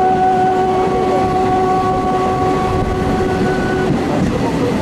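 Passenger train running, heard from a coach window, with the locomotive horn sounding one long steady note that cuts off about four seconds in.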